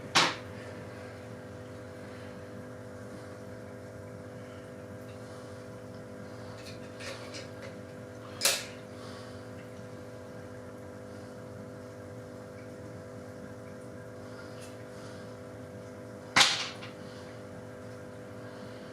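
Three short, sharp clicks about eight seconds apart, the first right at the start and the last near the end, over a steady hum.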